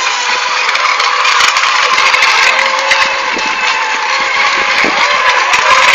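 Several FSR-E electric racing model boats running together on the water, with the motors' drone and hull spray mixed into a steady din. The pitch dips briefly a few times as boats throttle back.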